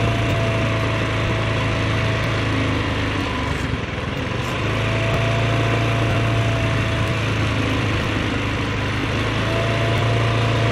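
Small motorbike engine running steadily at low speed, a constant hum with a thin whine that fades in and out every few seconds.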